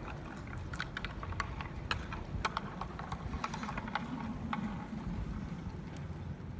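Sandstorm wind rumbling and buffeting the microphone, with scattered irregular ticks and clicks.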